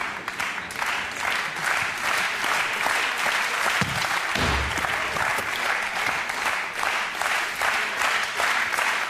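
Studio audience applauding steadily, with two short low thumps about four seconds in.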